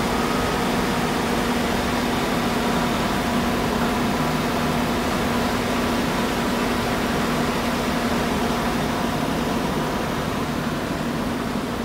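Large diesel engine running steadily with an even hum, fed with injector cleaner from a pressurised flush canister during an injector cleaning.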